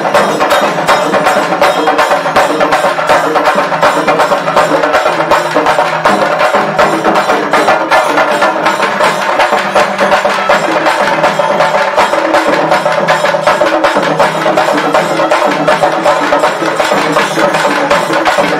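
Traditional Tamil temple festival drumming: several drums beaten with sticks in a fast, driving, unbroken rhythm, with a steady pitched tone running underneath.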